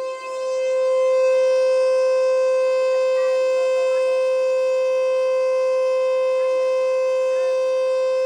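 Federal Signal Eclipse 8 electronic outdoor warning siren sounding a steady tone during a siren test. The tone dips briefly at the start, then holds one loud, even pitch.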